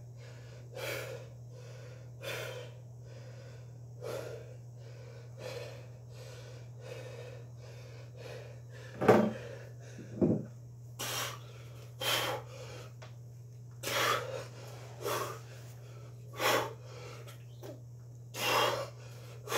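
A man breathing hard after a heavy set, with loud, noisy breaths about every second and a half that come faster near the end. About halfway through there are two louder, deeper bursts, and a steady low hum runs underneath.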